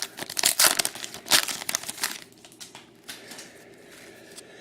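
Crinkling and rustling of a trading-card pack wrapper and cards being handled, dense for about the first two seconds and then quieter.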